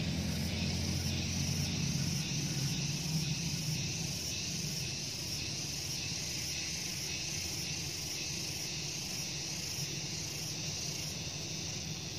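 Insects droning in a steady, high, even hiss with faint regular pulsing. A low rumble underneath fades over the first few seconds.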